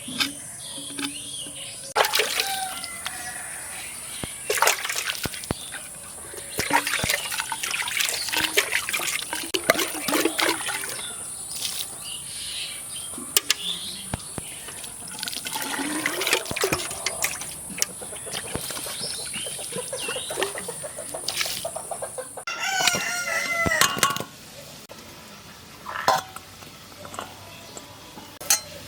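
Chickens clucking and a rooster crowing once, a wavering call of about a second near the end, over scattered knocks and clicks.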